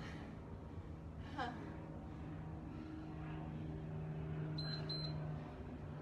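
Two short high beeps from an interval timer, close together about three-quarters of the way through, marking the end of a work interval. Before them a short voiced exhale of effort about a second and a half in, over a low steady hum that swells in the middle.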